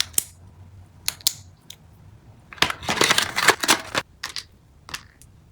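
Plastic packaging crinkling and rustling while small items are handled, with a few sharp clicks and taps; a longer burst of crinkling comes in the middle.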